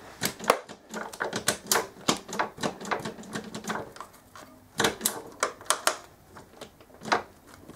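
Small socket ratchet clicking in short, irregular runs of quick ticks while the gear lever's clamp bolt is nipped up.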